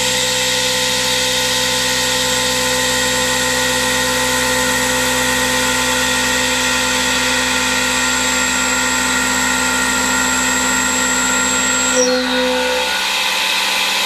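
Hurco VMX42i CNC vertical machining center milling a metal part: a steady high-pitched whine of the spindle and cutter with a constant machining tone. About twelve seconds in the high whine stops with a brief knock as the cut ends, and a lower machine hum carries on.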